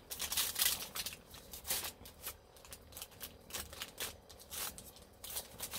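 Aluminium foil crinkling and rustling as hands press and stretch pizza dough out on it: a quick run of short crackles for the first couple of seconds, then sparser ones.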